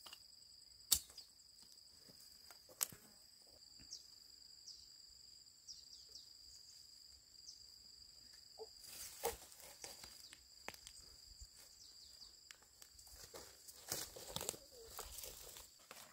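Insects calling in a steady high-pitched drone. Over it come two sharp clicks, about a second in and near three seconds, and bouts of rustling and scraping in the second half.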